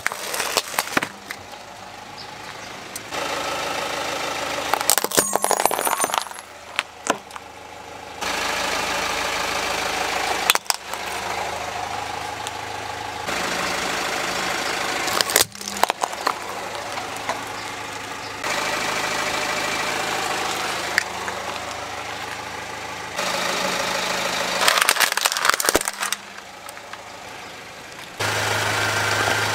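A car's engine idling while its tyre rolls over hard plastic toys, with several bursts of sharp cracking and crunching as the toys break under the wheel.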